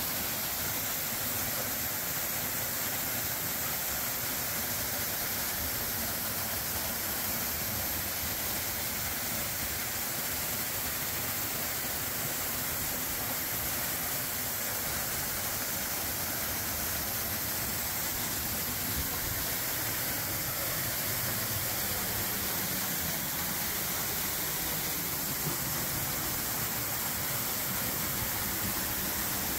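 Waterfall rushing: a steady, even hiss of falling water that does not let up.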